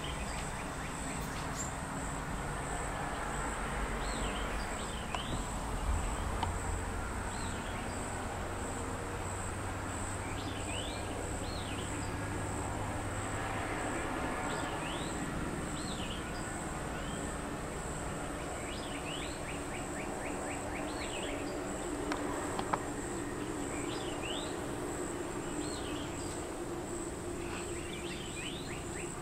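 Outdoor pond ambience: a steady high-pitched insect drone that pulses about twice a second, with short upward-sliding bird chirps every few seconds. A low rumble sits underneath through the first half, and a fast ticking trill comes in near the end.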